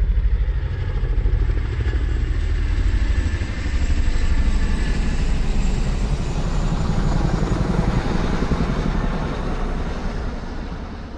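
A motor vehicle's engine running with a fast, rhythmic low pulsing that swells and dips, then fades away near the end.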